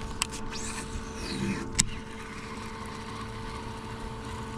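A fishing cast: the rod swishes and the reel clicks as it engages, over the steady hum of the boat's motor.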